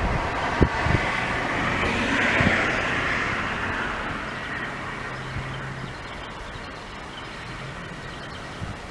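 A vehicle passing, its noise swelling to a peak about two to three seconds in and then slowly fading away, with a few low thumps of wind on the microphone in the first second.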